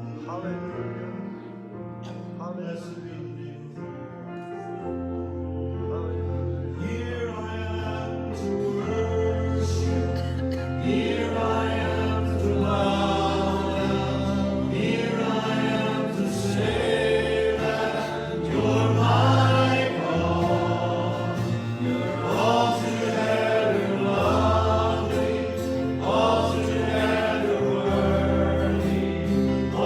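Worship music: a choir singing a gospel-style song over instrumental accompaniment. It starts quietly, a bass comes in about five seconds in, and the voices enter and the music grows louder.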